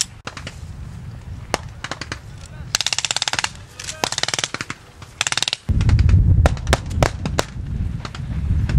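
German MG42-type machine gun firing blanks in short, very rapid bursts, with single cracks between them. Past the middle a loud low rumble sets in beneath the shots.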